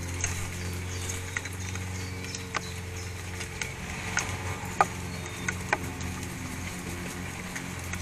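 A steady low hum with about six short, sharp clicks scattered through it, the loudest about five seconds in.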